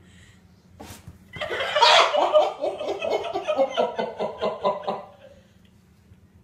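A person laughing off-camera in a long run of quick chuckles, about four or five a second, that fades out after a few seconds. A short sharp click comes just before the laughter starts.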